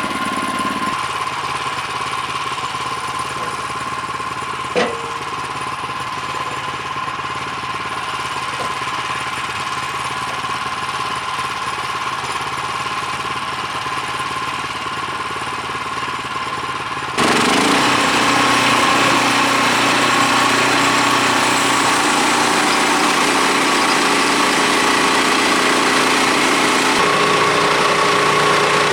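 Woodland Mills HM126 sawmill's gas engine running steadily, with one short sharp click about five seconds in. About seventeen seconds in, the engine gets suddenly louder and stays louder.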